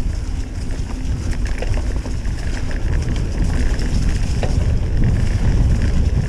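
Wind buffeting the camera microphone and knobby tyres rumbling over a dirt trail as a mountain bike descends at speed, with scattered small clicks and rattles from the bike and trail.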